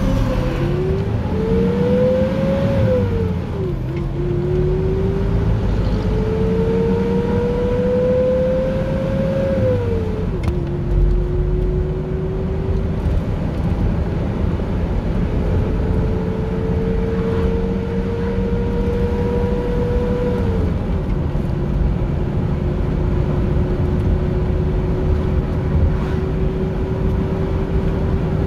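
Hyundai Porter with a Starex engine accelerating hard, heard from inside the cab. Its engine note rises through each gear and falls back at three upshifts, then holds steady at cruising speed.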